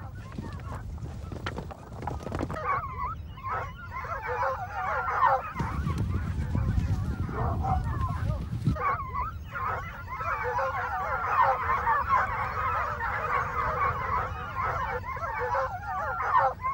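A pack of foxhounds in full cry: many hounds baying together in a wavering, overlapping chorus that starts about three seconds in and is thickest in the second half, with a low rumble beneath it at times.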